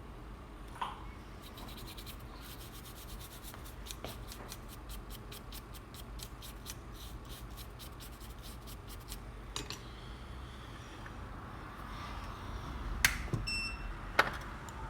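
Small tools and parts being handled at a repair bench: light scratching and rubbing, a run of rapid faint ticks lasting several seconds, and a few sharper clicks near the end, over a steady low hum.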